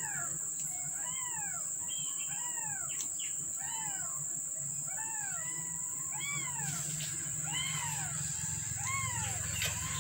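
Very young kittens, about two weeks old, mewing over and over: about a dozen short calls, each rising and then falling in pitch, less than a second apart. A steady high-pitched buzz runs underneath.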